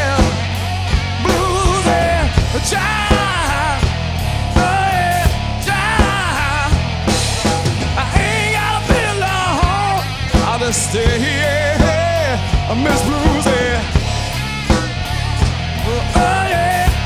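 Live blues-rock band playing an instrumental stretch: electric guitar, bass and drums on a steady beat, with a lead line full of bends and vibrato over them.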